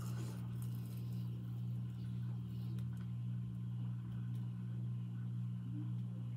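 A steady low hum, with faint chewing on top of it.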